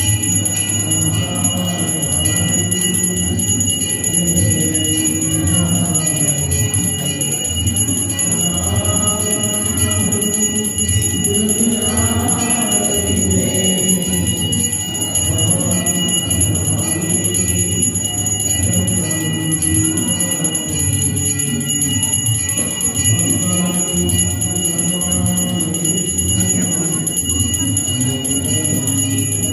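Temple bells ringing without pause, over devotional aarti singing.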